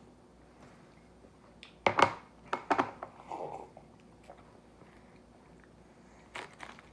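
Close-up eating sounds from a person biting and chewing bread: a few sharp mouth sounds about two seconds in and again just before three seconds, with quiet between.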